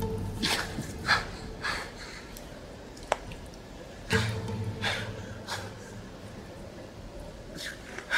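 A man's heavy, strained breathing as he climbs a rock face: a string of short gasping breaths, with a low groan at the start and again about four seconds in. A single click comes about three seconds in.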